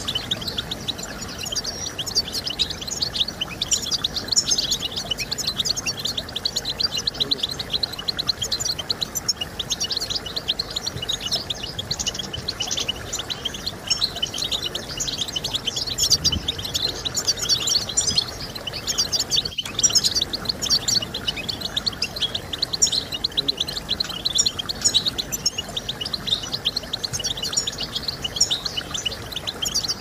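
European goldfinch singing: a fast, continuous stream of high twittering chirps and trills. A momentary break cuts it about two-thirds of the way through.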